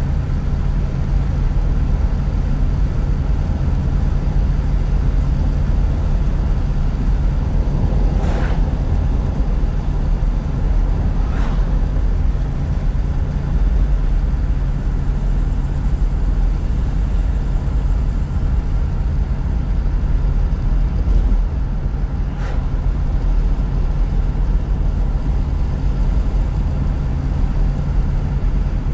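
1976 Chevrolet Camaro LT driving at a steady speed, heard from inside the cabin: a steady low engine and road drone, with three brief knocks during the drive. The car runs smoothly with no odd noises.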